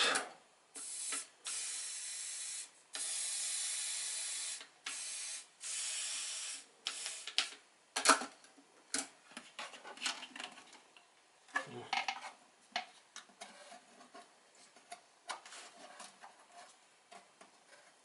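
Hissing spray in about five separate bursts of one to two seconds each. It is followed by light clatter and a few sharp knocks as the subwoofer cabinet is handled.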